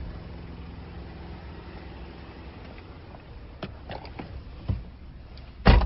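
Steady low hum of a car's engine idling, heard inside the cabin, with a few light clicks about two-thirds of the way in and a single heavy thump near the end.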